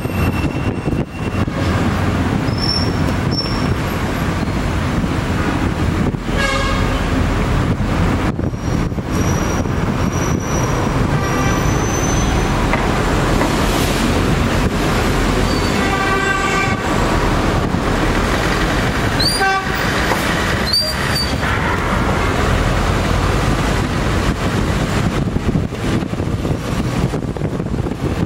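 Steady loud vehicle and traffic rumble, with horns sounding a few times, about six seconds in and again around sixteen seconds, and several brief high squeals.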